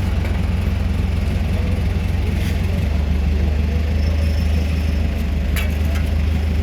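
Engine of heavy road-construction machinery running steadily with a deep hum that shifts slightly in pitch a little before halfway through; a couple of short clicks.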